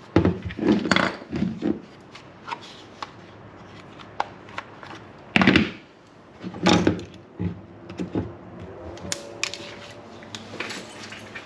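Irregular clicks, taps and knocks of screws and a hand tool being handled while screws are set into a trolling motor power plug mounting plate. The two loudest knocks come about five and a half and seven seconds in.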